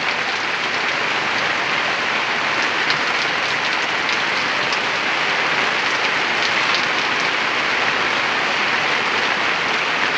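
A steady, even hiss of water with a few faint scattered ticks.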